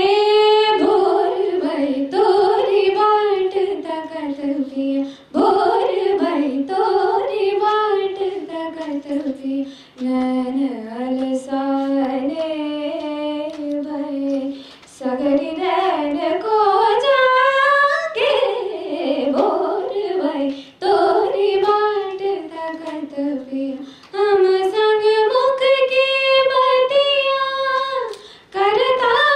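Solo female voice singing a Hindustani classical bandish in Raag Gujari Todi, unaccompanied, through a handheld microphone. Long, ornamented phrases glide up and down in pitch, with short breaks for breath between them.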